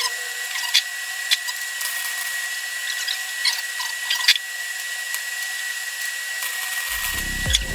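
A power tool running steadily with a high whine, with scattered sharp clicks and taps of metal work. Music with a heavy beat comes in near the end.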